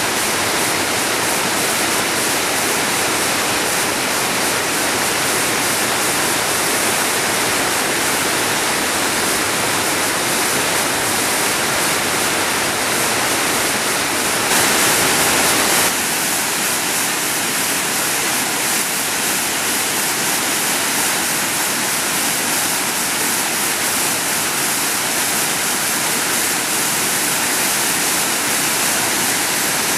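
Water rushing steadily over a waterfall, a constant full hiss. About halfway through it swells louder for a second or so, then carries on with less of its deep rumble.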